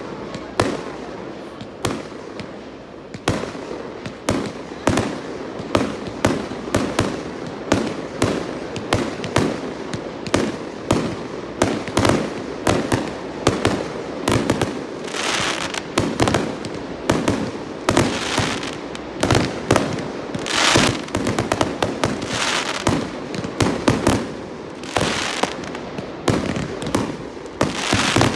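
Aerial fireworks shells bursting one after another, several bangs a second, with a few longer hissing bursts now and then.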